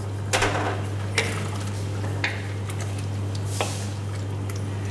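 Wooden spatula stirring chicken in thick coconut-milk gravy in a steel wok: wet squelching with a few scrapes and knocks against the pan, over a steady low hum.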